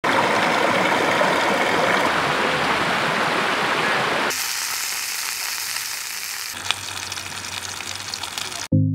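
Shallow stream rushing over rocks, then, after abrupt cuts, sausages frying in a cast-iron skillet. A music jingle starts at the very end.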